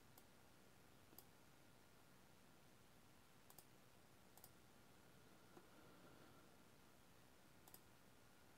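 Near silence with a few faint, scattered computer mouse clicks while files are browsed on a computer.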